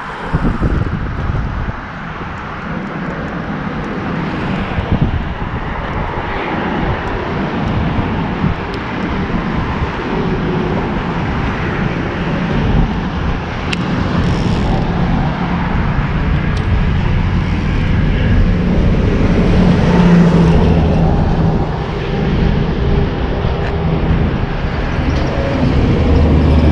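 Road traffic on the adjacent highway bridge: a steady rush of tyres and engines, with a deeper engine drone building up in the second half.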